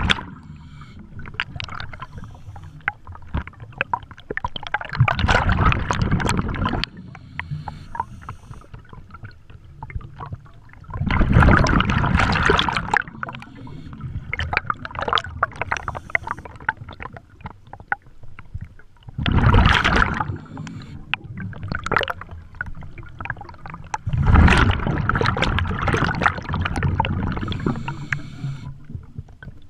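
Scuba diver's regulator exhalations underwater: four long bursts of rushing, gurgling bubbles several seconds apart, with quieter ticking and hissing between breaths.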